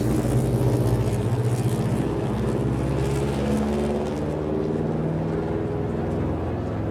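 Motor vehicle driving past: a steady engine drone with tyre and road hiss that swells over the first few seconds and then fades, the engine note dropping slightly about four seconds in as it goes by.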